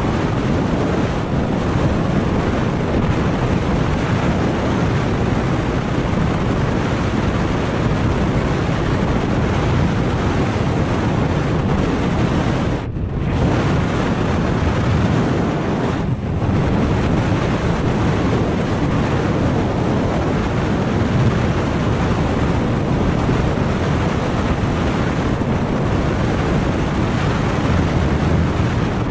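Wind buffeting an action camera's microphone on a scooter riding at about 53 km/h: a loud, steady rushing noise that drowns out the engine. It briefly drops out twice, a few seconds apart, about halfway through.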